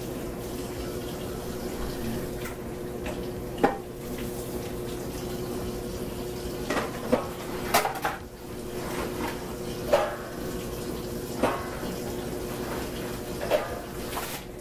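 Kitchen faucet running steadily into a stainless steel sink while dishes are washed, with scattered clinks and knocks of dishes in the sink, about seven of them, the sharpest about four seconds in and again about ten seconds in.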